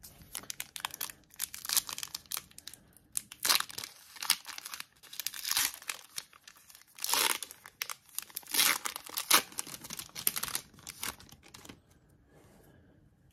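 Trading card pack wrapper being torn open and crinkled by hand, a run of sharp crackling rips and rustles that stops near the end.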